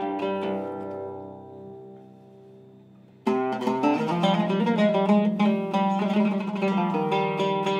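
Oud with a cedar soundboard and Kürschner strings, played with a plectrum. A plucked chord rings out and fades for about three seconds, then a fast run of picked notes starts suddenly and carries on louder.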